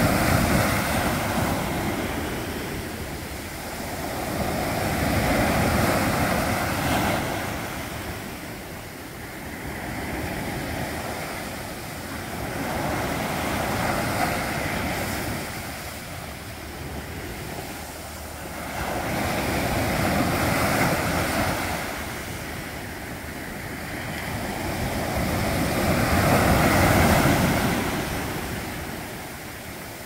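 Sea waves breaking and washing up a sandy beach around a rock: a steady rush of surf that swells and fades in long surges every five to seven seconds.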